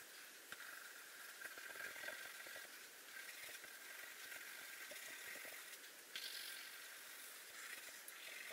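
Graphite pencil hatching on paper: faint, rapid scratchy strokes as shadows are shaded in.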